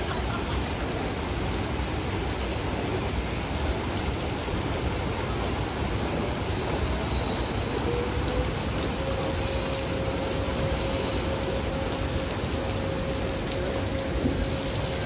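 Water jets spraying over a raft-ride channel, their droplets falling onto the water and surrounding surfaces like heavy rain: a steady hiss. A faint steady tone joins about halfway.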